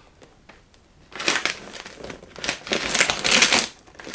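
Gift wrapping paper rustling and crinkling as it is pulled open around a large present, in a run of bursts starting about a second in.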